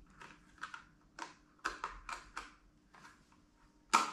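Plastic packaging crinkling and crackling in short irregular bursts as a small plastic egg holder is unwrapped by hand, with the sharpest crackle near the end.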